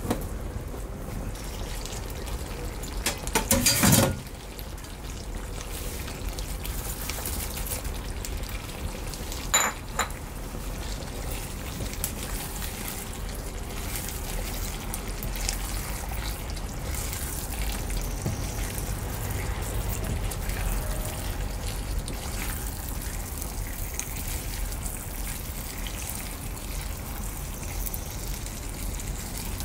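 Okra and deep-fried tofu bubbling in a thin braising sauce in a pan as a spatula stirs and turns them, a steady wet sizzle. A quick run of knocks and clatters about three to four seconds in, and one sharp knock near ten seconds.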